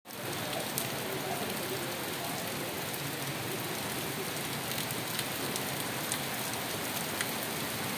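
Steady rain falling on a street: an even hiss with a few sharper drop taps here and there.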